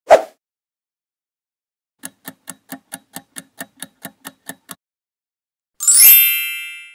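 Quiz-show sound effects: a brief low burst at the start, then a timer ticking about five times a second for under three seconds, then a bright bell-like ding that rings and fades.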